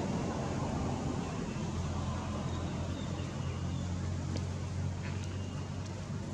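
Steady low outdoor rumble with a faint hiss, and a couple of faint ticks past the middle.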